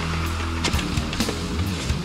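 Rock music with guitar over a steady drum beat of about two hits a second.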